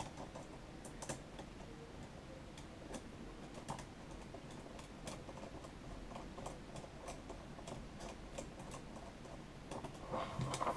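Faint, scattered clicks and light ticks of small machine screws and brass standoffs being handled and screwed by hand into an LCD board's mounting corners.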